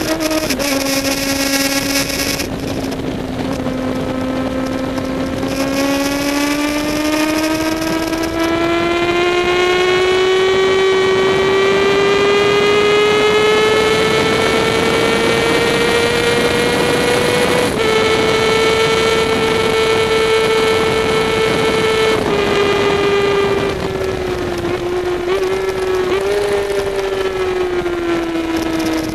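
Honda CBR sport bike's engine under way on a race track: the engine note climbs steadily for about twelve seconds as the bike accelerates, drops sharply a little past halfway on an upshift, then falls back in steps over the last seven seconds as it slows. A high hiss comes and goes during the first eight seconds.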